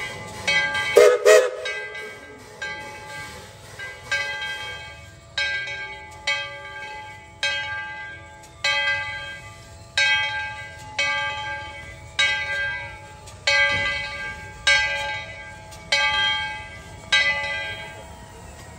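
Steam locomotive bell of narrow-gauge Baldwin 4-6-0 No. 12 ringing steadily, about one clang a second, with two louder strokes about a second in. The ringing stops near the end.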